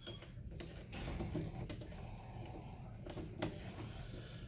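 Faint clicks and cable handling as an RJ45 Ethernet plug is pushed into the network port on the back of a desktop computer, with several small, sharp ticks spread over a few seconds.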